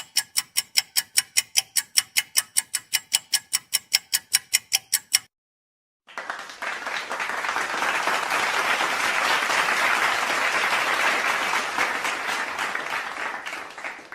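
Fast, ringing ticks, about five a second, for about five seconds, like a timer or clock ticking effect. After a pause of about a second, a crowd applauds for about eight seconds, swelling and then fading out.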